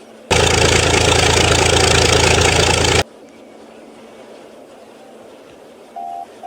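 Snow machine engine running loudly and steadily, starting abruptly and cutting off suddenly after under three seconds. A short horn-like beep sounds near the end.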